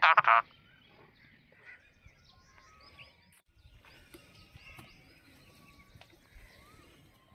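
A loud pitched call ends in the first half second; after it, faint outdoor ambience with scattered small bird chirps, broken by a brief drop to near silence about three and a half seconds in.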